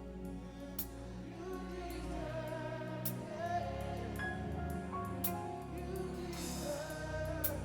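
Gospel worship music: a band with sustained keys, bass and cymbal strokes under singing voices.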